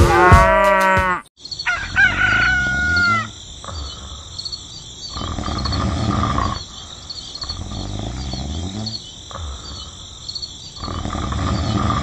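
Farm-animal call sound effects for about the first three seconds, then a cartoon snoring effect: slow in-and-out breaths about every two and a half seconds over a steady high chirping background.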